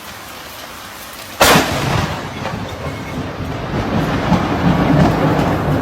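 Rain falling steadily, then a sudden sharp thunderclap from a nearby lightning strike about a second and a half in, followed by a long rolling rumble of thunder.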